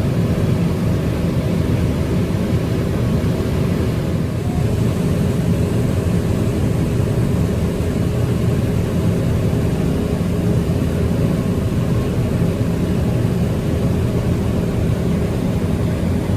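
Fendt Ideal 9T combine running under load while harvesting corn and unloading grain on the go, heard in the cab: a steady engine and machinery drone with a few steady tones.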